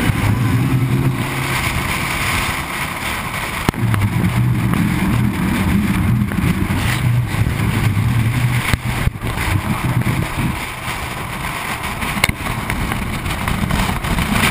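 Wind and tyre noise on a camera mounted outside a moving truck, with a low engine drone underneath and a few short knocks.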